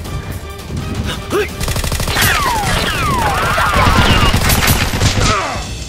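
Rapid automatic gunfire sound effects, dubbed over toy-blaster shooting, with background music. Several falling, whistling sweeps run through the shots, and the firing fades out near the end.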